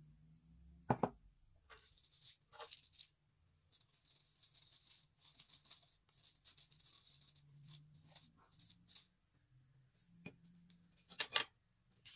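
A small plastic sieve is shaken and tapped as dry ground match-head powder sifts through its mesh: a dry, rattling hiss with many small ticks. There is a sharp tap about a second in and a few more knocks near the end.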